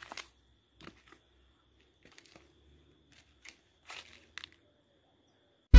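Faint scattered clicks and rustles, typical of a phone being handled as it is turned, over a thin, faint, steady high tone. Loud electronic music starts abruptly at the very end.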